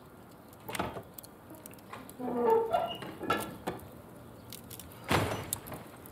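Clothes being rummaged through: fabric rustling in short bursts, with a few sharp knocks.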